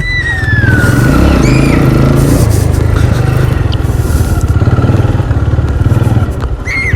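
Old Renegade motorcycle's engine running loud and rough through its exhaust, the noise the title calls a misfire. A high whistle-like tone glides down in the first second.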